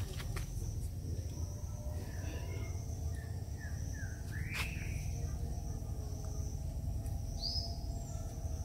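Outdoor pond-side ambience: a few short bird calls, an arching one about halfway through and a high chirp near the end, over a steady low rumble and a thin, steady high insect drone.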